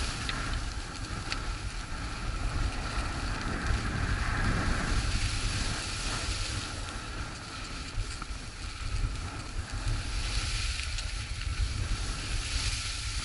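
Wind buffeting the microphone with a low rumble, over the hiss and scrape of skis running on chopped-up groomed snow. The scraping swells and fades every few seconds.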